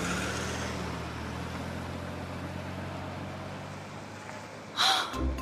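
A car engine running as the car pulls away, its steady hum slowly fading. Near the end there is a sudden short loud noise.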